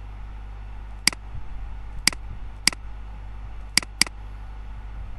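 Computer mouse clicking: single sharp clicks about a second apart, then a quick double click, over a steady low hum.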